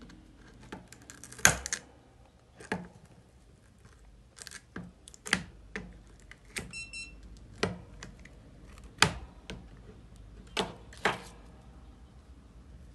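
Irregular sharp metal clicks and snips of pliers and side cutters working at a circuit board, about a dozen in all, with a brief high-pitched beep about seven seconds in.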